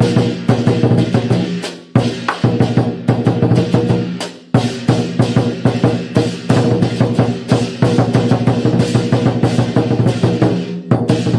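Lion dance percussion music: rapid, loud drum beats that break off briefly twice.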